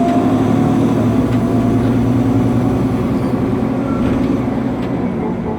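Nova Bus LFS city bus heard from inside the cabin while it is running: a loud, steady low drone from the engine and drivetrain.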